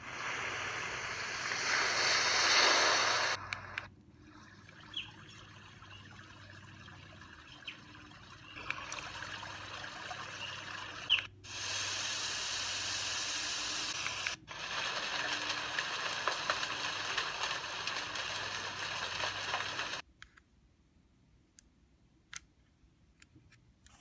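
BeGrit N10 sound machine's speaker playing its built-in background noise sounds, a steady noise that switches to a different sound several times, with a brief dropout at some of the changes. It cuts off about 20 seconds in, leaving only a few faint clicks.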